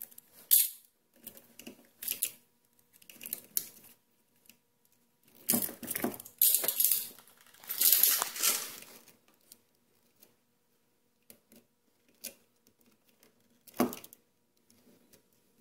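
Insulation being stripped off an electrical wire: irregular crunching and scraping bursts, the longest from about five to nine seconds in, and a sharp click near the end.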